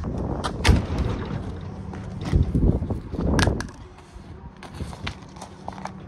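Handling noise from a phone being moved and propped up: rubbing and bumping on its microphone, with several sharp thumps and knocks in the first half, then a few lighter clicks.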